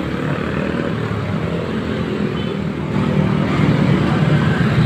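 Road vehicle engine rumble and traffic noise, growing louder about three seconds in as a vehicle draws nearer.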